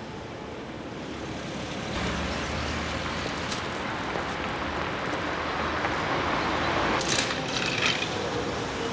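Street traffic on a slushy winter road: cars driving past with steady tyre and engine noise, which jumps up about two seconds in and grows louder. Near the end a bus passes close, with a few sharp clicks and rattles.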